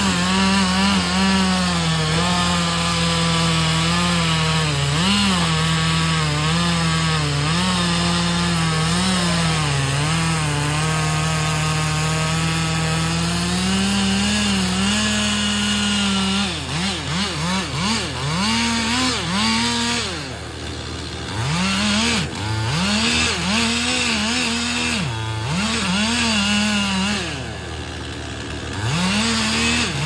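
Chainsaw running hard through a cut for about the first half, its pitch sagging and recovering under load, then revved up and down over and over in short bursts. A steady low engine hum sits underneath.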